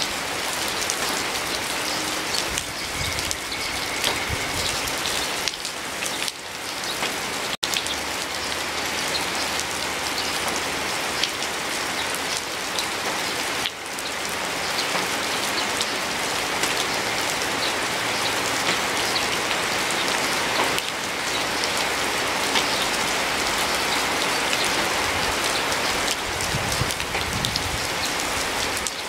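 Steady rain falling, with many individual drops ticking close by; the sound drops out for a split second about seven and a half seconds in.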